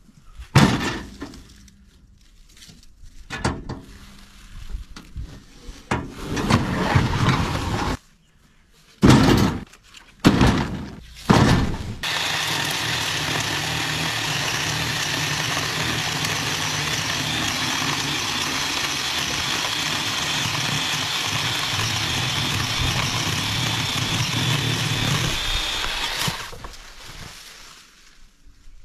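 A few heavy wooden thunks as lumber is handled, then a chainsaw cutting through wooden planks, running steadily for about fourteen seconds and stopping shortly before the end.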